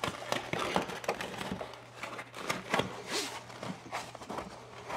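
Handling noise as refrigerant lines and a drain hose are worked through a wall hole: irregular light knocks and clicks with rustling, and a brief scrape about three seconds in.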